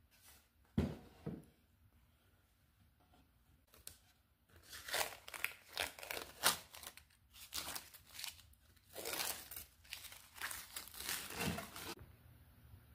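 Blue painter's tape being peeled off an engraved wooden sign by hand, in a run of irregular ripping, crinkling pulls. About a second in, two knocks as the board is set down on the bench.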